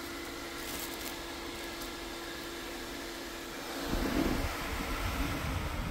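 Craftsman V20 compact battery fan running steadily: an even airy whir with a steady hum in it. About four seconds in, a louder low rumble joins as the fan is picked up and handled.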